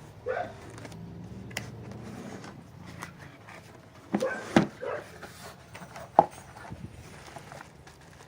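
A dog barking several short times, mixed with sharp clicks and knocks of handling, the loudest about four and a half and six seconds in.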